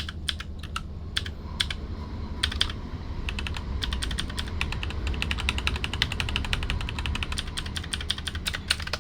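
Typing on a mechanical keyboard: short runs of key clicks at first, then fast continuous typing from about three seconds in.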